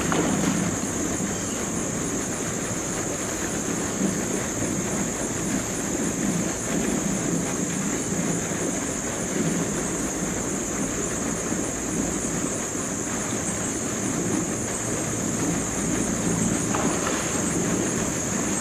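Insects trilling steadily in a high, unbroken drone, over a low, uneven rumble.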